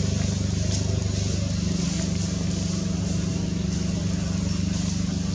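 An engine running steadily at an even, low pitch, with no change in speed.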